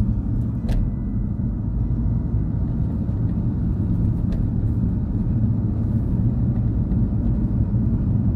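Steady low rumble of a moving car's engine and tyre noise heard from inside the cabin, with a couple of faint clicks.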